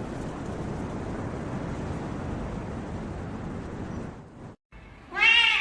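Steady low rushing noise, then after a short break a cat gives a loud, drawn-out meow near the end.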